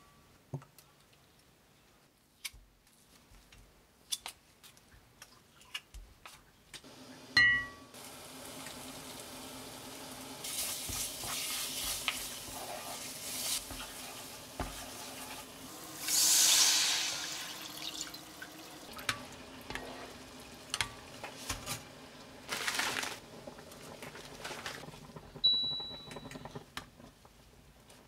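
Cooking on an induction cooktop. Short control beeps sound about seven seconds in and again near the end, and from the first beep on the hob hums steadily while a wooden spatula stirs and scrapes red pepper paste in a ceramic pot. About halfway there is a long loud hiss as liquid goes into the hot pot, with clicks and clinks of utensils against the pots.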